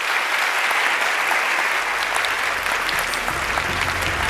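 Large audience applauding steadily, the clapping dense and continuous.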